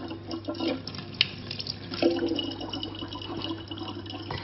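A thin stream of water from a faucet pouring steadily into the neck of a large plastic water jug, with one small click about a second in.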